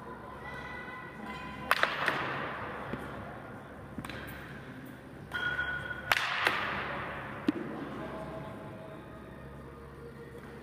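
Bat striking a baseball twice, about four seconds apart: each hit is a sharp crack that rings on through a large, echoing indoor hall, with a smaller knock following a moment later.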